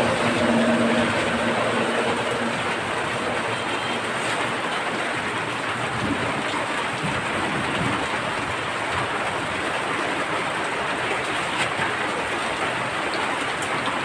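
Heavy rain falling steadily, an even, unbroken rushing noise.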